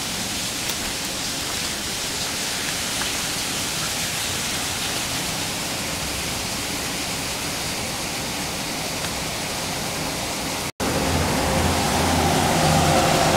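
Steady rush of flowing river water. It cuts out for an instant about eleven seconds in, then comes back louder with a low hum in it.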